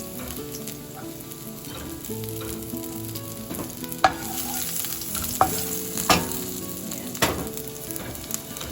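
Garlic and ginger sizzling in hot oil in a wok as they are sautéed, with a utensil knocking against the pan four times in the second half.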